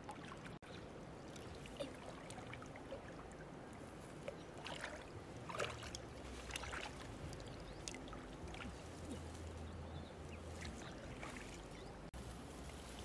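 Shallow river water splashing and sloshing as hands move through it, with scattered small splashes over a steady water noise.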